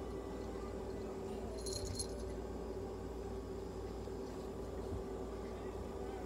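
Long-haired black mixed-breed cat purring steadily while being stroked, over a constant hum. A brief metallic jingle comes about two seconds in.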